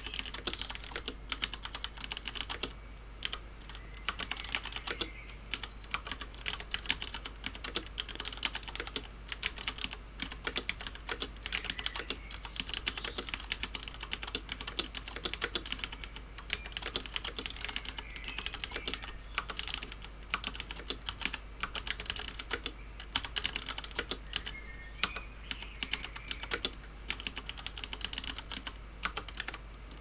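Steady touch-typing on a Filco Majestouch 2 mechanical keyboard with Cherry MX Brown switches, about 60 words a minute: a dense, uneven patter of keystrokes with no pauses.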